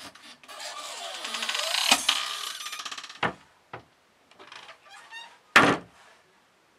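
Door hinges creaking long and raspily as a door is swung open, with a knock partway through, then a couple of light knocks and shorter creaks before the door is shut hard with a loud bang near the end.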